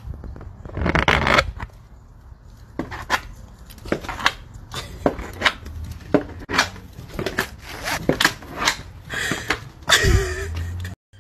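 Clear plastic cone collar and claws knocking and scraping on wooden steps as a dog climbs them: an irregular string of clicks and knocks.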